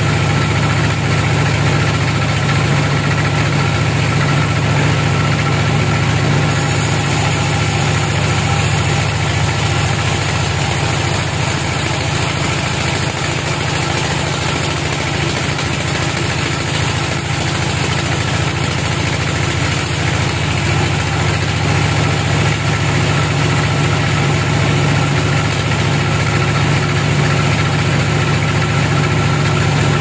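Band sawmill running steadily with a low, even drone as it saws a teak log, with a brighter hiss from about six to twenty seconds in.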